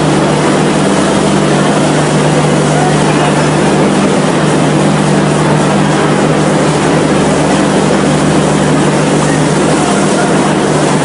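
Steady running noise of a moving train: an even, loud rushing rumble with a constant low hum, unchanging throughout.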